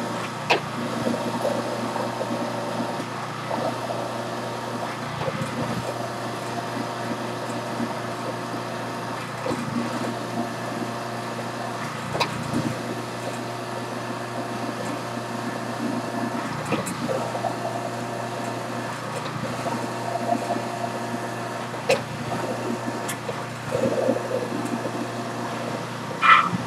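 Electric juicer's motor running steadily with a hum while fruit pulp is pushed down its hopper and pressed a second time, with a few brief clicks from the pulp and the plunger.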